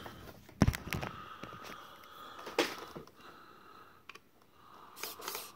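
Handling of a small plastic battery box and a screwdriver: scattered knocks and clicks, the loudest a sharp knock about half a second in, as the screwdriver is set into the box's screw to open it.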